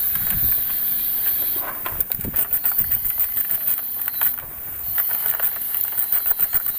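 Ratchet wrench with a 10 mm socket clicking in quick runs as it loosens the engine-cover bolts: two bursts of rapid ratcheting, about two seconds in and again near the end. A steady high-pitched hiss runs underneath.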